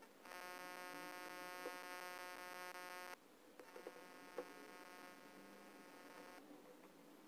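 A steady electrical buzz with many evenly spaced overtones, which starts just after the beginning, drops to a much fainter level about three seconds in and cuts off about six seconds in. A few light clicks of handling come in the middle.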